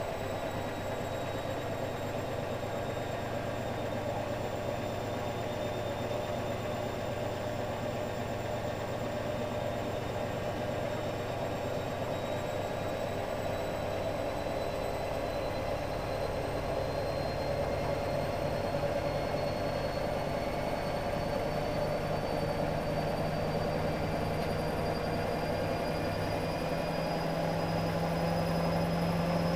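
Hotpoint WM63 washing machine running with a steady motor hum and whine that rise slowly in pitch and grow slightly louder toward the end, as the drum gathers speed.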